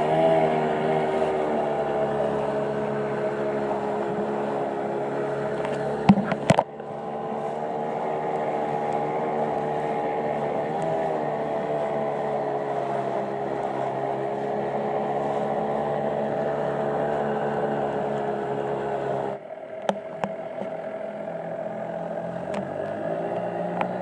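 Small outboard motor driving a dinghy at speed, with a steady drone. The sound breaks off briefly about six seconds in, and about three-quarters of the way through it drops suddenly to a quieter running sound.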